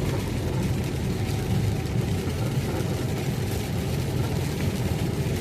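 Steady engine and road noise of a loaded semi-truck driving, heard from inside the cab, a low, even rumble.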